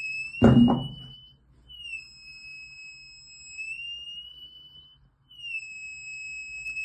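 DC buzzer of an IR flame-detector circuit sounding a steady high-pitched tone, with a slight waver in pitch. It sounds when the circuit's IR receiver picks up infrared radiation, switching the transistor on. The tone breaks off briefly about a second and a half in, then drops out for about a second near the middle before sounding again, and a loud thump comes about half a second in.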